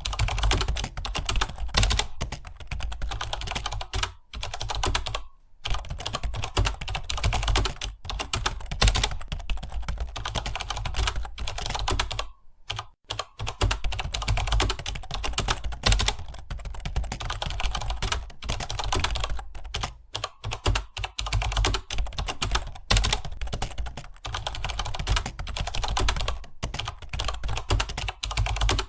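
Continuous fast typing on a computer keyboard: a dense run of key clicks, with short pauses about four to five seconds in and again about twelve seconds in, over a steady low hum.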